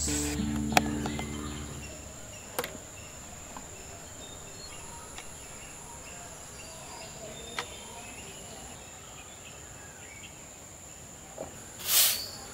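Steady high insect drone over quiet outdoor ambience, with a few light clicks, as background music fades out in the first two seconds. Near the end a stiff broom sweeps bare dirt ground with one loud swish.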